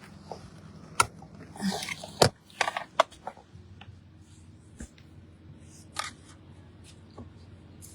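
Clicks and rattles of plastic parts on a handheld car vacuum being unclipped and pulled apart for cleaning: sharp snaps about one, two and three seconds in with handling noise between them, then a few fainter clicks, over a low steady hum.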